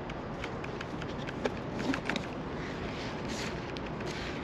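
Faint handling sounds of a nylon release strap being pulled back through a motorcycle tank bag: light clicks, ticks and a short rustle, over a steady background hiss.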